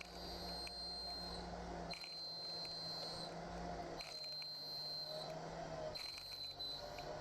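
CNC milling machine running, with a high steady whine that sounds for about a second and then drops out, repeating roughly every two seconds over a lower hum.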